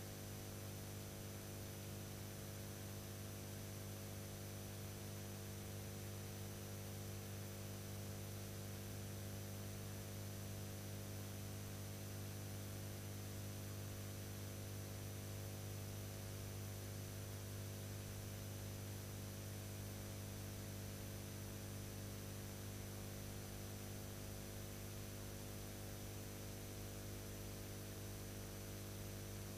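Steady electrical hum with a faint hiss over it, unchanging throughout and with no other sound: the noise of the transfer of a silent film that has no soundtrack.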